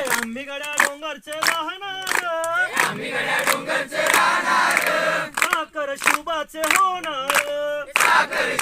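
Call-and-response group singing with rhythmic hand clapping: one voice sings a line alone over the claps, and the group answers together. The lone voice comes in again about five seconds in, and the group answers near the end.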